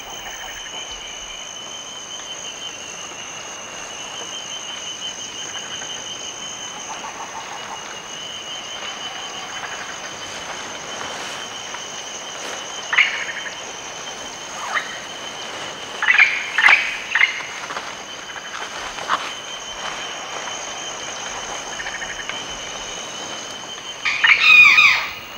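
Tropical rainforest ambience: insects trilling steadily at two high pitches, with scattered short bird calls from about halfway. Near the end a chachalaca gives a louder call.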